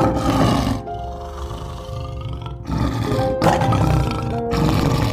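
Asiatic lion calling in two long, rough calls, the first fading out about a second in and the second from about three to five seconds in, over background music.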